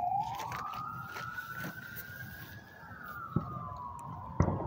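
Emergency vehicle siren in a slow wail, rising in pitch over the first few seconds and then falling. Two sharp firework bangs cut in, the louder one near the end.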